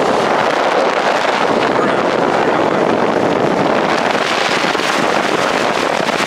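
Steady, loud rush of wind and road noise from a car driving at speed.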